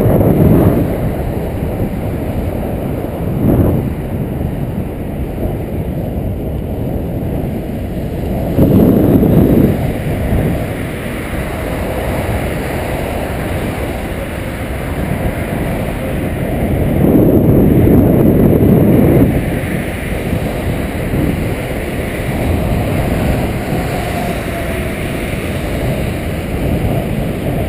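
Wind buffeting the microphone of a helmet-mounted GoPro on a moving bicycle: a steady low rumble that swells louder several times.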